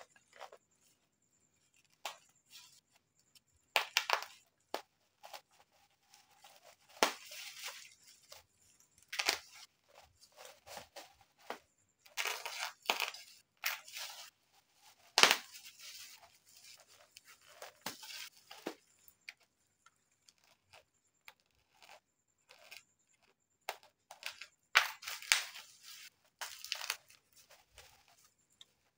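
Black plastic bubble wrap being cut with a small blade and pulled apart by hand: crackling, rustling and tearing in irregular short bursts with quiet gaps between them.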